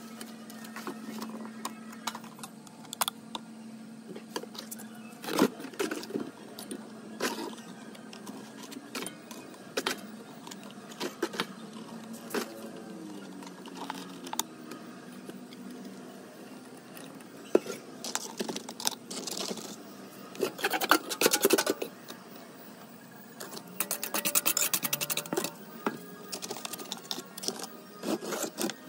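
A plastic bottle and a plastic container being handled, and wet cement scraped and spread with a small trowel: scattered clicks and taps, with busier stretches of scraping in the second half, over soft background music.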